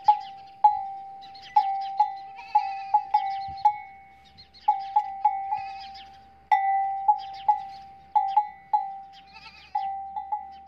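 A livestock bell clanking in uneven, swinging strikes, each one ringing out briefly, with a few short bleating calls between the strikes.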